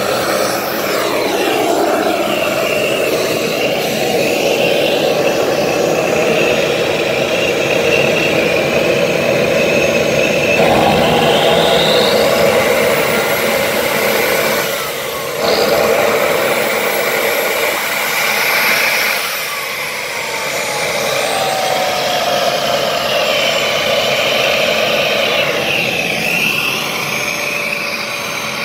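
Homemade turbojet engine built around a turbocharger, running: a steady rushing roar with a turbine whine that rises and falls. The sound drops briefly about fifteen seconds in.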